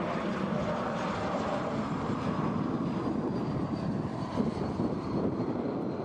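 Airbus A220 twin-jet on short final passing close by, its turbofan engines giving a steady rumble with a thin whine that slowly falls in pitch as it flares for landing.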